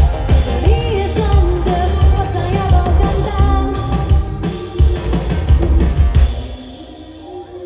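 Live band playing a rock-pop song with drum kit and a woman singing, loud and full; the band stops about six seconds in, leaving a faint held note ringing on.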